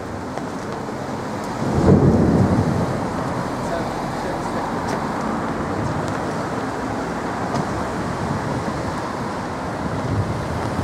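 A low rumble of thunder starts suddenly about two seconds in and dies away over about a second, over the steady hiss of rain.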